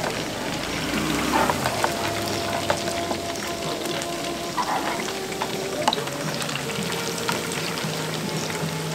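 Hot oil sizzling steadily as food deep-fries, with scattered small pops, over background music.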